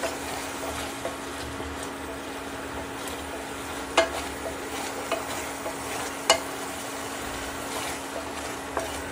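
Tomato puree sizzling in a stainless steel frying pan as a spatula stirs it, with sharp clicks of the spatula against the pan about four and six seconds in. A steady low hum runs underneath.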